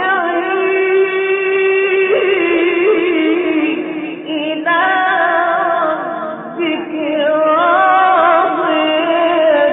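A man reciting the Quran in the slow, melodic mujawwad style, drawing out long ornamented notes in three phrases with short breaks between them. The recording is old and narrow, with little treble.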